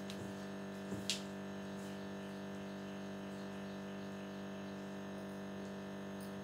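A steady electrical hum, with a couple of faint clicks about a second in.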